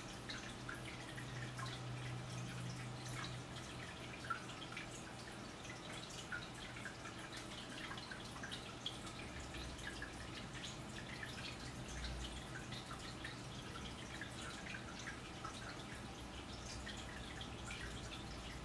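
Quiet room tone: a low steady hum with many faint, scattered little ticks.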